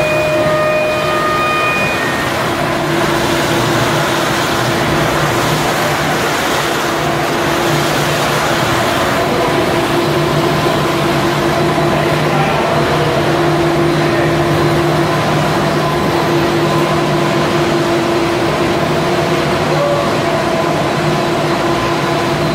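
Snack food extrusion line machinery running steadily: a continuous mechanical hum and hiss with steady low tones. A higher whine stops about two seconds in.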